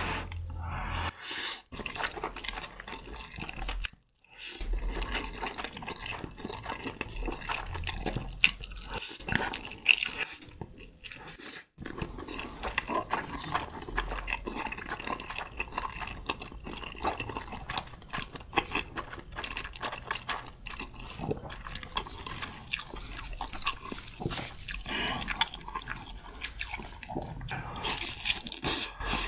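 Close-miked eating sounds: slurping a mouthful of spicy stir-fried noodles, then a long run of wet chewing with small clicking and smacking mouth sounds. Near the end, a bite into a thick tomahawk steak.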